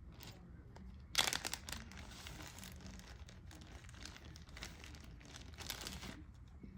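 Crinkling and rustling of something being handled. It starts with a loud crackle about a second in and carries on in uneven bursts until it stops near the end.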